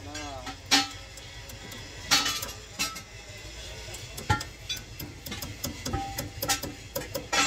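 Small metal parts clinking and clicking as they are handled over a metal pan: a run of sharp, irregular clicks, with a duller knock about halfway through.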